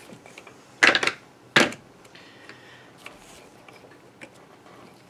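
Two sharp knocks about a second in as a screwdriver and the plastic drill housing are handled on a worktable, then a few faint clicks as a screw is turned by hand into the plastic housing.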